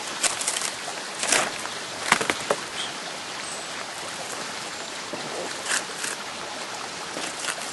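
Steady rushing noise broken by scattered sharp snaps and cracks, with a cluster of them about two seconds in.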